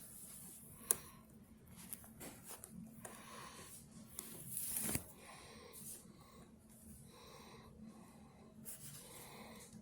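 Small clicks and scraping from handling a laptop's screen panel and hinge parts while screwing the screen to the hinges. There is a sharp click about a second in and a longer scrape around the middle.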